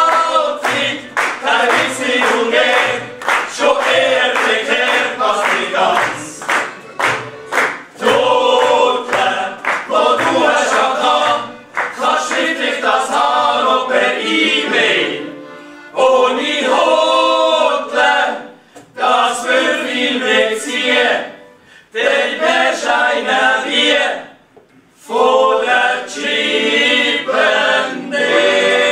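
A group of voices singing together in chorus, line after line with short breaks between the phrases.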